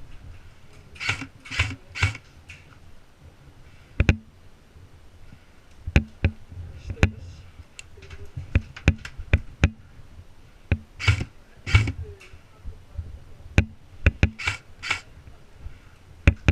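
Airsoft guns firing single shots: sharp pops at irregular intervals, between short clusters of rustling bursts around one to two seconds in, and again after eleven and fourteen seconds.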